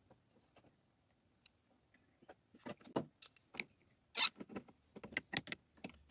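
Metal clicks and clatter of a spanner working a car battery terminal clamp loose and off its post: a quick run of sharp clicks in the second half, the loudest a little past four seconds in.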